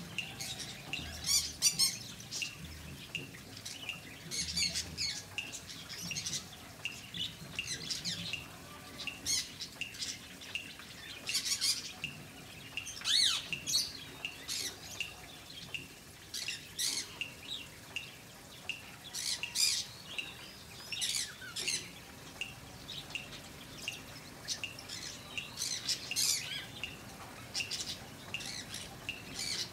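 Birds calling: many short, high chirps and squawks, a few every second, some sliding down in pitch.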